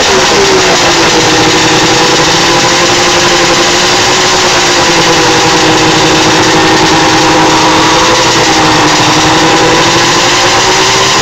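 Yamaha SRX 700 snowmobile's two-stroke triple engine running steadily, its pitch dipping and coming back up briefly at the start and then holding level, with a loud hiss over it.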